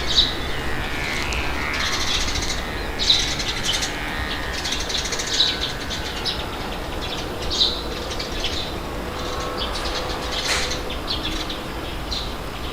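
Steady low wind rumble with birds chirping over it in short repeated calls.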